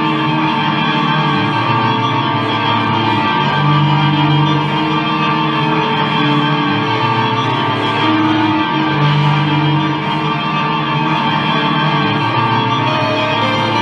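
Live music performance: dense, sustained drone layers with echo, and a low note that swells in and out about every five seconds.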